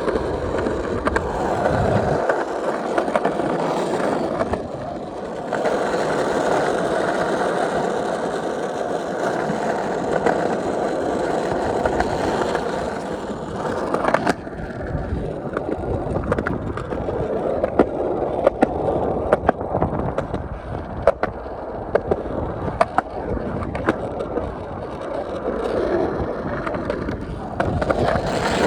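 Skateboard wheels rolling steadily over pavement, with many sharp clicks through the second half as the board crosses joints and rough patches.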